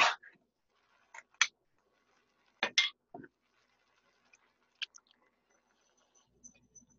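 Scattered sharp clicks and knocks of a metal food can being handled over a saucepan. Near the end, softer low knocking as the can is tipped and canned tomatoes slide into the pan.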